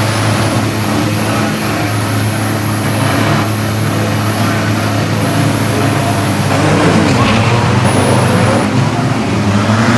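Race-prepared drag trucks' engines held at high revs during burnouts, a loud steady drone. The revs rise again about seven seconds in and near the end.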